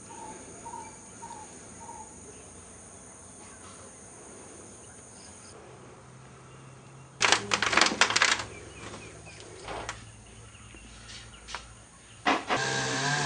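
Faint outdoor background with a few bird chirps at first, then a burst of loud clattering knocks about seven seconds in. Near the end a chainsaw starts with a sharp crack and runs, its pitch wavering.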